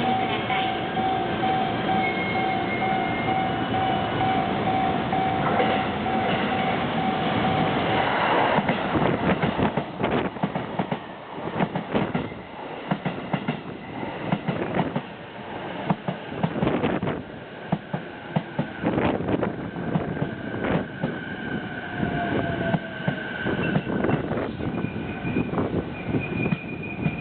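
JR East E233 series electric train pulling into a station and slowing. From about nine seconds in, its wheels clack irregularly over the rail joints. A steady high tone runs through the first eight seconds.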